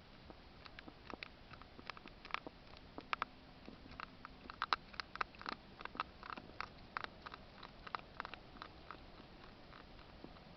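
Hedgehog eating, with a quick, irregular run of small clicks and crunches from its chewing, busiest in the middle.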